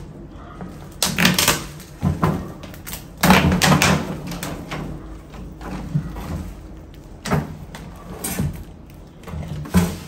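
A clear plastic sheet crinkling and crackling in irregular bursts as it is peeled by hand off the top of a plastic bucket. The loudest burst comes about three seconds in.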